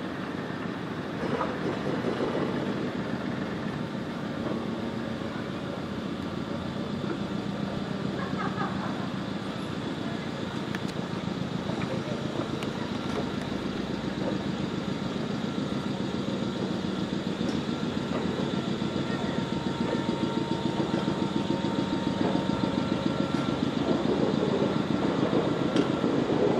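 Former Nankai 2200 series electric train, moved with the small electric locomotive Deki 3, rolling slowly along yard track: a steady mechanical running noise of wheels and running gear that grows louder toward the end as the cars pass close.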